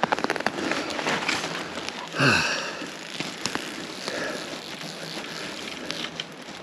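Footsteps through dry grass and scrub, with dead twigs and stems crackling and snapping underfoot in many quick sharp clicks. About two seconds in, a short grunt-like sound that drops in pitch.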